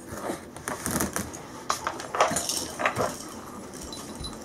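Wooden toy blocks clacking and clattering together as they are handled and dropped, in irregular sharp knocks.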